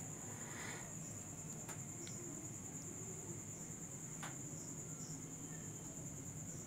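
Crickets trilling without a break, a steady high-pitched drone, with a low hum beneath and two faint clicks.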